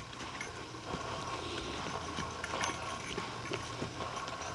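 Footsteps walking on a forest trail, a faint run of irregular steps and small crunches with a couple of sharper clicks near the end.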